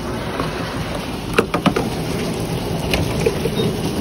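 Steady low rumble of gas station background noise in the rain, with a few sharp clicks about a second and a half in and fainter ones near the end.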